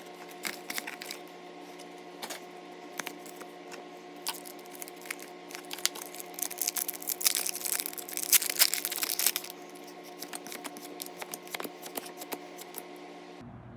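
Plastic and foil card packaging crinkling and tearing in irregular bursts as a Pokémon card blister pack and its booster pack are opened by hand, busiest in the middle. Under it runs a steady low hum that cuts off just before the end.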